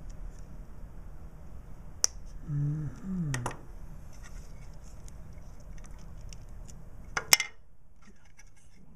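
Hands handling a small circuit board and a plastic housing: a sharp click about two seconds in and a louder double click about seven seconds in. A short murmur from a voice comes in between.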